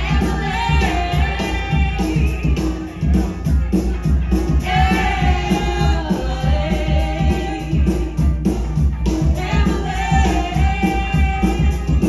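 Live band music with singing: three long sung phrases over a steady beat with heavy bass.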